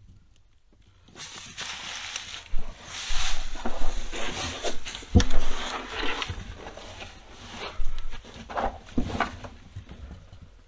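Rustling and scraping of a person moving on foot over dry leaves and earth, with a sharp knock about five seconds in and another near the end.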